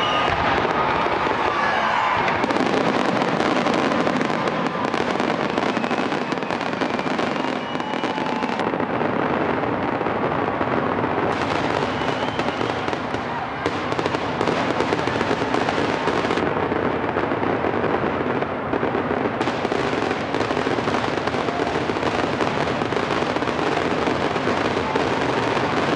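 Fireworks grand finale: a dense, unbroken barrage of shell bursts and crackling, many going off at once with no pause.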